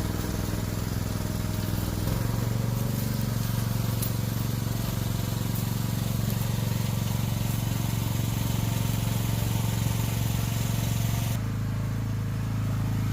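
Engine of the shed-delivery vehicle running steadily with a low hum, getting slightly louder and higher about two seconds in.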